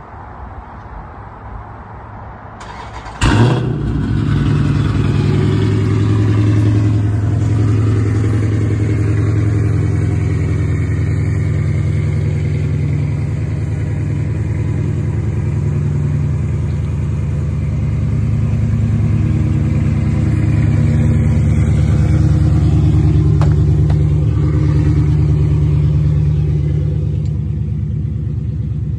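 Dodge Charger's V8 cold start: about three seconds in the engine fires with a sharp loud burst, then settles into a steady idle.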